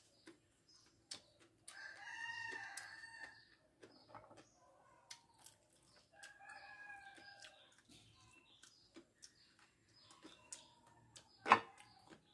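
A rooster crows twice, once about two seconds in and again about six seconds in, each a long pitched call. Small clicks and taps run throughout as quail eggshells are cracked and peeled by hand, with one sharp knock near the end.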